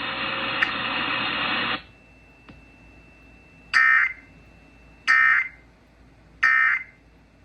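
Emergency Alert System end-of-message data tones over FM radio: three short, harsh bursts about a second and a half apart, starting near the middle, closing out the Amber Alert. Before them a steady hiss cuts off about two seconds in.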